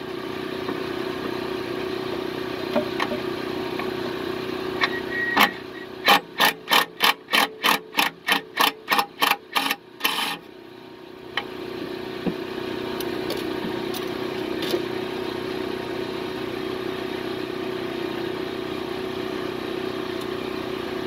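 MIG welder arc crackling in a fast, even run of short pulses, about three a second for some four seconds beginning about six seconds in, ending in a slightly longer burst, as a nut is welded onto a broken-off exhaust manifold bolt stub to remove it. A steady mechanical hum runs underneath.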